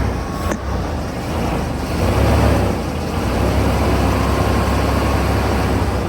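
1989 GMC Sierra pickup's engine running steadily, a loud low rumble that swells a little about two seconds in. A single short click comes about half a second in.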